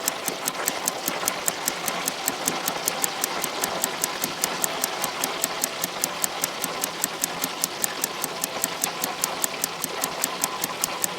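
Battered shrimp deep-frying in 350-degree oil, a steady sizzle, with a fast, even ticking about five times a second over it.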